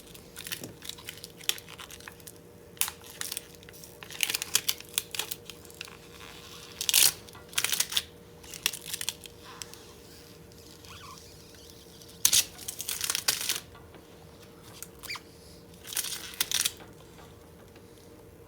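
Thin polarizing film being peeled by hand off an LG Gram laptop's LCD panel, tearing and crackling in short, irregular spurts.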